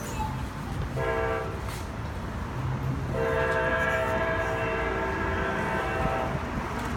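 Air horn of an Amtrak GE P42DC diesel locomotive: a short blast about a second in, then a long blast of about three seconds. A steady low rumble of the passing train runs underneath.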